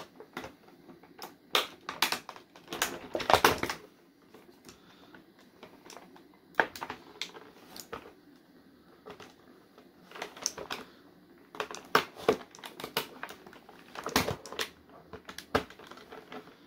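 Irregular sharp snaps and clicks of twist ties being cut to free an action figure from its packaging, some coming in quick clusters.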